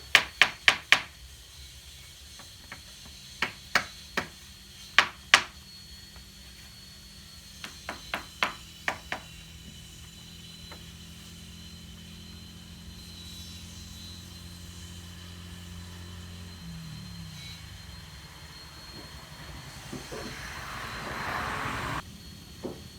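Groups of sharp knocks, hammer blows on wood, in three quick runs. Then a steady low machine hum that winds down and stops about two-thirds of the way through, and a short hissing rush near the end.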